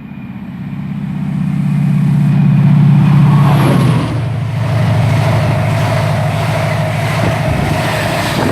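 Chiltern Railways diesel express passing through the station at speed. The diesel engine builds as it approaches, its note drops sharply as it passes about four seconds in, then the coaches roll by with a steady rumble.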